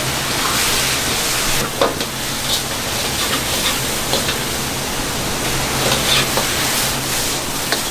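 Vegetables sizzling in a steel wok over a high gas burner as they are stir-fried, a steady hiss with a low hum beneath it. The metal ladle clicks against the wok several times.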